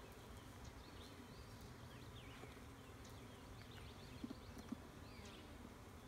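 Faint honeybee buzzing around an open nuc box, with scattered high chirps and a few soft wooden knocks about four seconds in.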